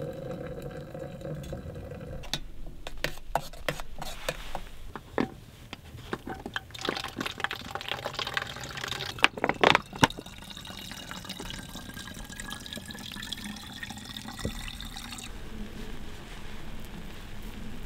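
Water pouring and filling containers: hot water poured from a kettle into a mug, and bottled water poured into a plastic water bag, with scattered clicks and knocks between. In the second half, one pour's tone slowly rises in pitch.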